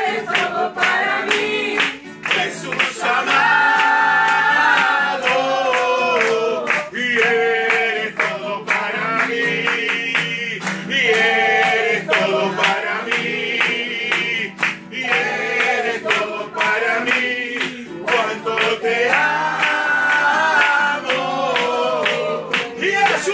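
Congregation singing a worship song together with steady hand clapping, accompanied by an electric guitar.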